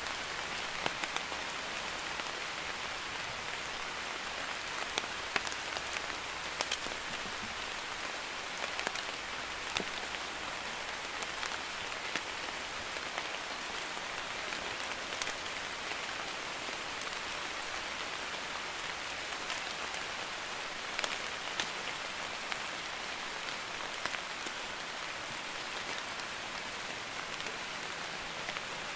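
Light drizzling rain falling steadily: an even hiss of rain with scattered sharp ticks of individual drops.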